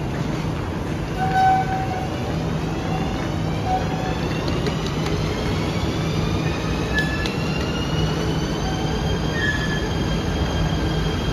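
ETS electric train whining, several high tones climbing slowly in pitch from about two seconds in and then levelling off as it picks up speed, over a steady low hum.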